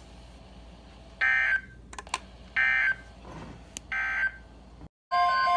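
NOAA Weather Radio EAS/SAME end-of-message data signal: three short bursts of warbling digital tones, about a second and a half apart, marking the end of the warning. Near the end the audio drops out briefly and a steady chord of electronic tones begins.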